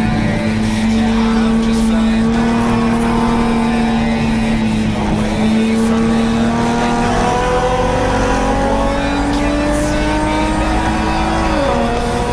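Nissan 350Z race car's 3.5-litre V6 heard from inside the stripped cabin, pulling under load on track. The engine note holds steady, climbs slowly over several seconds, then drops sharply near the end with a gear change.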